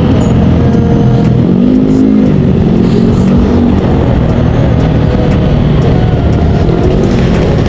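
A vehicle engine running loud and steady, with one brief rise and fall in revs about two seconds in.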